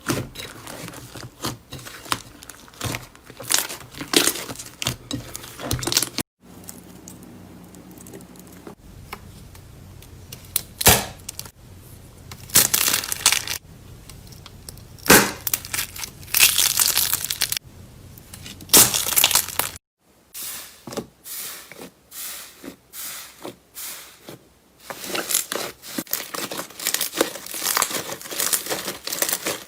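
Slime being pressed, poked and stretched by hand, making quick irregular crackling and tearing sounds. The sound cuts off abruptly twice, about six seconds in and about twenty seconds in, as one clip gives way to the next.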